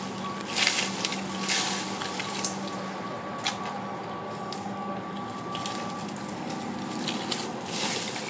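A dry branch swung and swished through brush, making a few short rustling swishes (one about half a second in, one about a second and a half in, one near the end) with scattered small clicks in between. A faint steady hum runs underneath.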